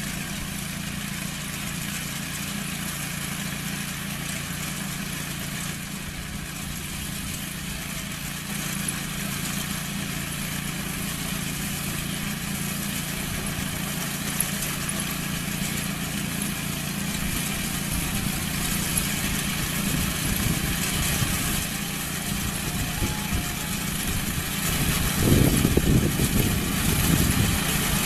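Engine of farm machinery running steadily with a low hum, growing gradually louder and rougher near the end.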